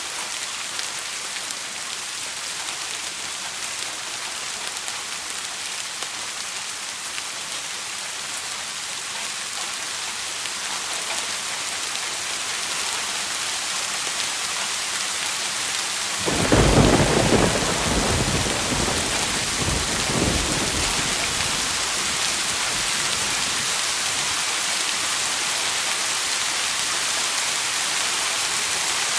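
Steady rain falling, growing gradually heavier, with a clap of thunder about halfway through that rumbles on for a few seconds and fades back into the rain.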